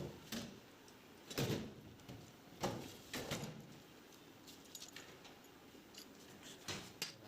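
Metal hand tools and engine parts clinking and knocking in a handful of separate sharp strikes, the loudest in the first few seconds, during hand work on a motorcycle engine's timing-chain side.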